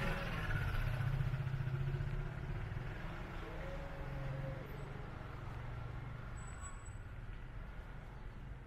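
A car's engine running close by, loudest in the first couple of seconds and then fading as it moves away, over the low hum of city street noise.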